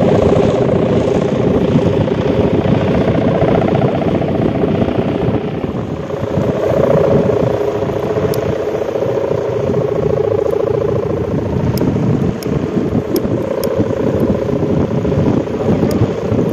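Two sendaren, Javanese kite hummers whose stretched plastic-film ribbons vibrate in the wind, droning together at two different pitches as a deep, steady, rumbling hum ("gludog"). The drone wavers slightly and swells and fades with the wind.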